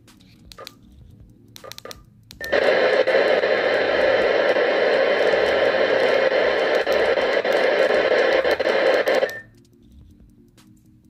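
Zastone D9000 transceiver beeping briefly a few times as a frequency is keyed in, then loud, even static hiss from its speaker for about seven seconds, with the receiver open on 14.000 MHz AM shortwave. The hiss cuts off suddenly about nine seconds in.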